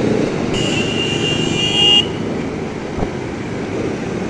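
A vehicle horn honks once, held for about a second and a half, over steady city traffic noise.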